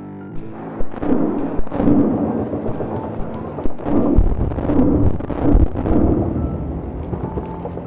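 A string of loud, rumbling booms and crashes, about five heavy hits within the first six seconds, easing off toward the end, with held musical tones underneath.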